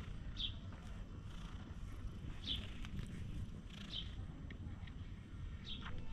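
Stray cat purring with a steady low rumble as it lies on its back being stroked. A bird gives a short high call four times, about every one and a half to two seconds.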